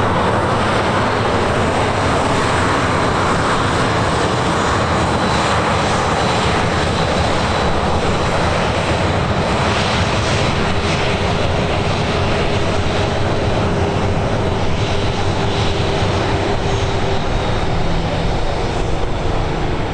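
Airliner engines running, a loud steady rush with a faint high whine over it.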